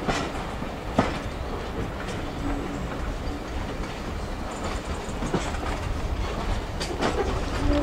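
Passenger carriage of a steam train running along the track: a steady low rumble with a sharp click of the wheels over a rail joint now and then.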